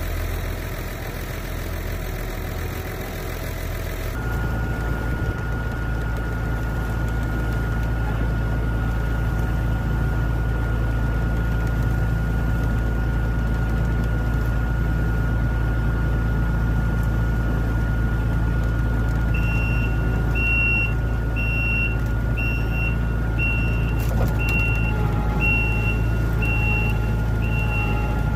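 Heavy farm machinery engine running steadily under load. About two-thirds of the way in, a regular electronic beeping starts, a little faster than one beep a second, like a reversing alarm.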